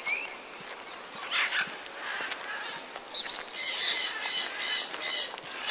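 Wild bird calling: a few short high notes, then a harsh chattering call repeated about five times a second for nearly two seconds in the second half.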